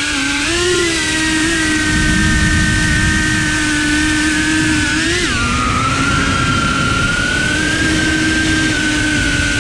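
Cinewhoop FPV drone's motors and propellers whining at a steady pitch, with a short rise and then a drop in pitch about five seconds in.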